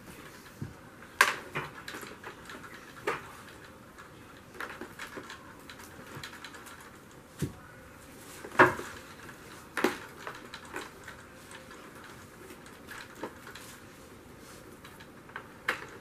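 Power cord being wrapped around the cord hooks on the plastic handle of a Bissell ProHeat 2X Revolution carpet cleaner: irregular clicks and knocks of the cord and plug against the plastic, the sharpest about a second in and twice near nine to ten seconds.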